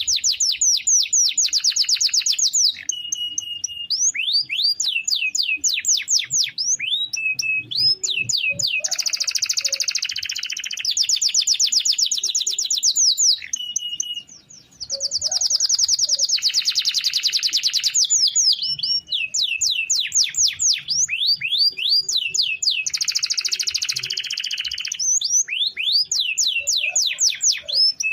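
Domestic canary singing long rolling trills of rapid repeated notes, mixed with quick upward sweeps and short whistled notes, in long phrases broken by brief pauses.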